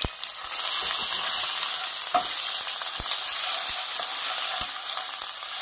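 Ginger paste, dry red chillies, cumin and mustard seeds sizzling in hot ghee in a nonstick kadai while being stirred with a wooden spatula. This is a tadka (tempering) frying. The sizzle grows louder about half a second in and stays steady, with a few soft knocks through it.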